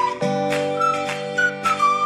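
Background music: a flute-like melody over sustained chords and a steady beat, the chord changing about a quarter second in.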